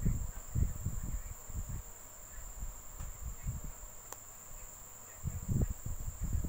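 Muffled low thumps and rubbing from hands crocheting yarn with a steel hook close to the microphone, heaviest in the first two seconds and again near the end, over a steady high-pitched whine.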